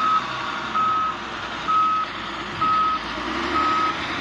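Vehicle reversing alarm beeping a single steady tone about once a second, five beeps, over the low noise of a running engine.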